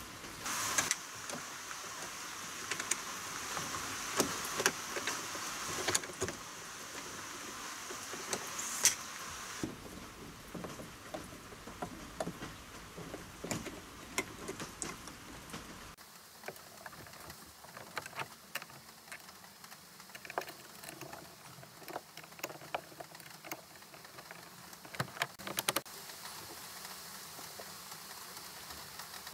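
Irregular clicks, knocks and light rattles of plastic-coated steel pipes and their joint fittings being handled and fitted up to a car's ceiling grab handles. A steady high hiss sits under the first third.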